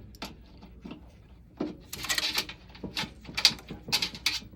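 Scattered clicks, light knocks and a scratchy rustle about two seconds in: hands pulling wiring and parts out of a central vacuum power unit's housing.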